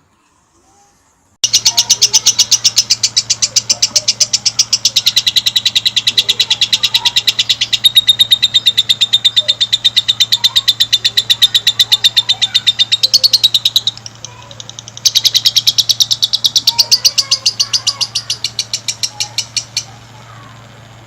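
Lovebird singing a long, rapid string of high, evenly repeated chirps, the drawn-out continuous song that lovebird keepers prize. It breaks off briefly about two-thirds of the way through, then resumes. A steady low hum runs underneath.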